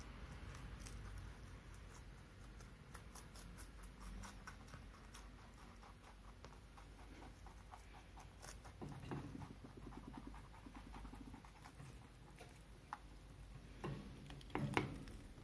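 Two rabbits chewing cabbage leaves: faint, rapid crunching clicks, with louder rustles of the leaves about nine seconds in and near the end.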